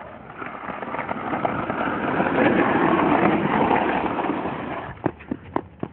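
A vehicle passing close by, its noise swelling to a peak midway and then fading, followed by a few sharp knocks near the end.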